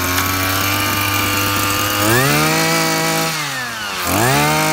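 26cc two-stroke brush cutter engine running on test, throttled up to a high whine twice: about two seconds in, held for a second and dropped back, then again near the end.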